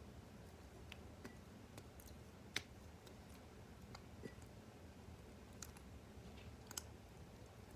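Slime being squeezed and worked by hand, giving scattered small clicks and pops, with the sharpest about two and a half seconds in and another near the end.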